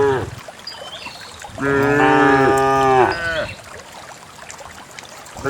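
Cows mooing: the tail of one call at the start, one long moo of about two seconds in the middle that drops in pitch as it ends, and another moo beginning right at the end.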